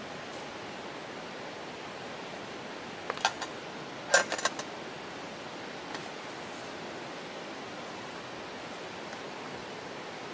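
Light metallic clinks from a stainless steel camping pot and its lid being handled: a few about three seconds in, then a louder cluster about a second later, over a steady hiss.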